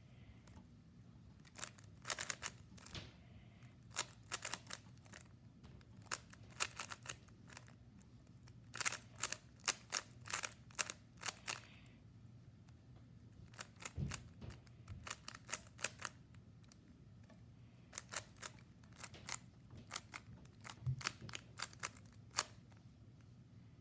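Rubik's Cube layers being turned fast by hand: rattling flurries of sharp plastic clicks, broken by short pauses while the solver looks at the cube, with a couple of soft thumps.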